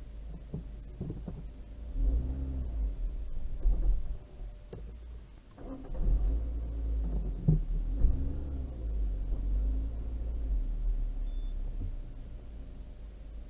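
Low rumble of a car's engine and cabin, heard from a dashcam inside the car as it creeps at walking pace. The rumble swells about two seconds in and again for several seconds from about the middle, then settles.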